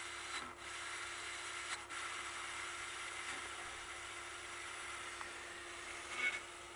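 Radio static hissing from the Hanimex 8-track receiver's tuner, off-station between channels, with a faint steady hum underneath. The hiss dips briefly twice in the first couple of seconds.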